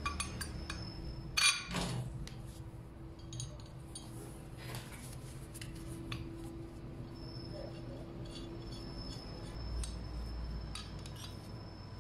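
Steel lathe parts being handled and fitted together by hand: scattered metal clinks and taps, with one louder knock about a second and a half in. A faint steady hum sits underneath.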